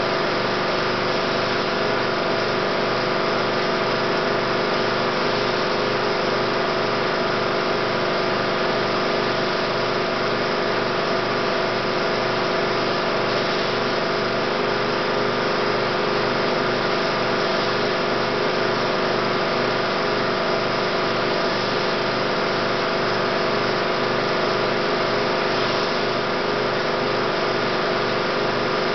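16mm film projector running: a steady mechanical whir with several constant tones over an even, rhythmic low pulse.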